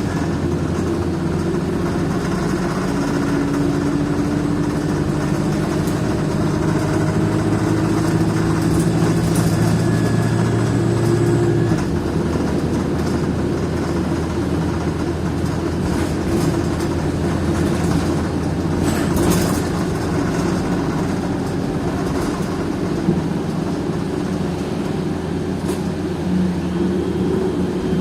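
Wright Eclipse single-decker bus running, with a steady low engine drone and some light rattling; the drone's lowest tone drops away and its pitch shifts about twelve seconds in.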